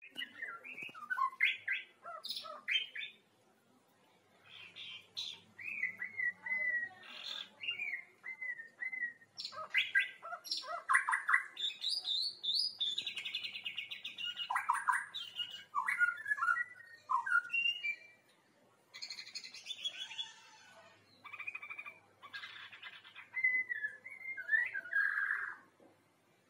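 Young forest-caught white-rumped shama singing: a string of varied whistles, chirps and gliding notes in bursts with short pauses, the practice song of a young bird still learning its full song.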